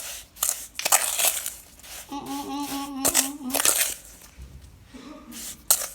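Homemade kinetic sand being mixed in a bowl, an irregular gritty crunching and rustling. A person briefly holds a hummed note in the middle.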